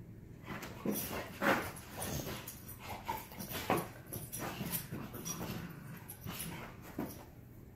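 A dog whimpering and yipping in short bursts, several times, about a second apart.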